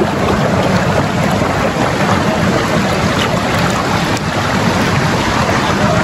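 Steady, loud rush of water from a river's falls and cascades.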